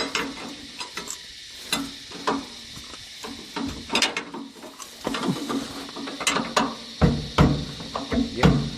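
Hand tools clinking and knocking on metal at irregular intervals, with a few heavier knocks near the end, as the bolts of a twisted tail shaft are worked loose.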